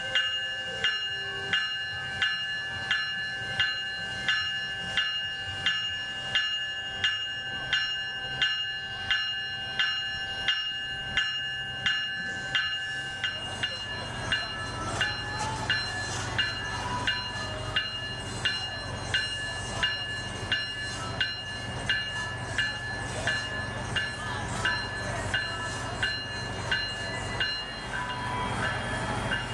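A railroad bell ringing steadily, about three strikes every two seconds, its ringing tone changing about halfway through. Under it is the low steady hum of idling diesel locomotives, stronger in the second half.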